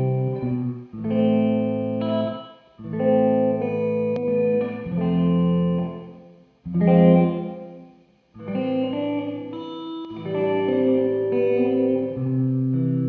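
Electric guitar, a Gibson Les Paul Custom into a Marshall 1987X amp, played through a Dr. Scientist Reverberator reverb pedal: chords ring out and die away, with a few brief breaks, one of them a short silence about eight seconds in.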